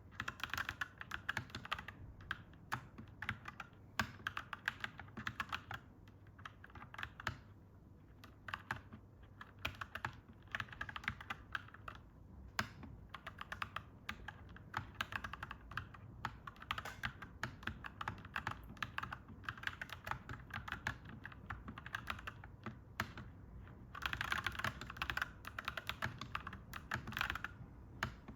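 Clacky mechanical keyboard being typed on in quick runs of keystrokes with short pauses between them. The typing gets faster and denser near the end.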